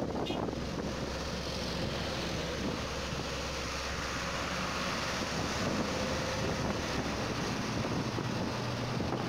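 Steady road and engine noise of a vehicle driving across a bridge, with wind blowing on the microphone.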